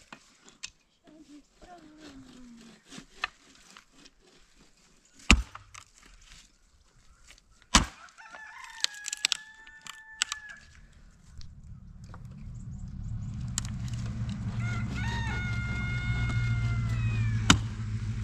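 A rooster crowing twice: a short crow about eight seconds in and a longer one near the end that falls away at its close. Between and around the crows come sharp knocks of wood being chopped, the loudest just before the end, and from about twelve seconds in a vehicle's engine rumble builds up.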